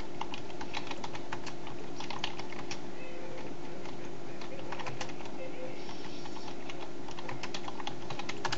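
Typing on a computer keyboard: quick, irregular key clicks in short runs with brief pauses, over a steady low electrical hum.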